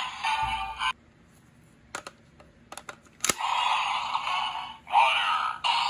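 Magnum Shooter 40X toy gun: plastic clicks from its parts being worked, a loud click a little past three seconds in, then the toy's electronic sound effects and announcement audio playing from its speaker.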